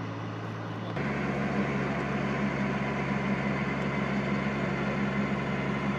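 Engine of a truck-mounted borewell drilling rig running steadily. About a second in, the sound turns abruptly louder, with a deeper, fuller hum that then holds steady.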